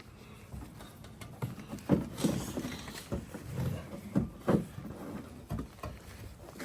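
Irregular knocks and clunks, about half a dozen loud ones in the middle, from a tool and hands working a hard-to-reach mounting screw on a pickup's plastic headlight housing.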